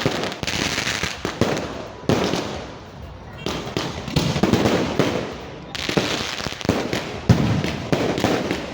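Fireworks display going off: repeated sharp bangs in quick succession over a continuous noisy wash, swelling and fading in waves.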